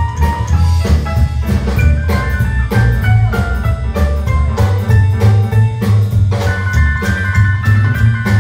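Live rockabilly band playing: slapped upright bass, drum kit, piano and electric guitar, with a steady driving beat.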